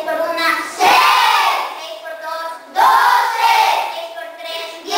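Schoolchildren chanting the multiplication tables in Spanish, call-and-response: a single voice gives each problem and the whole class answers loudly in unison, about every two seconds.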